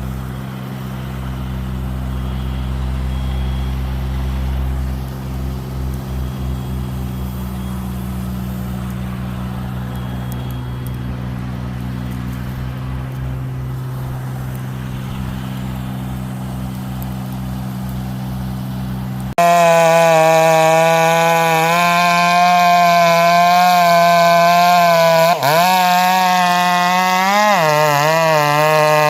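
An engine idling steadily, then, about two-thirds of the way in, a chainsaw running at high revs. The chainsaw's pitch wavers and drops briefly twice near the end.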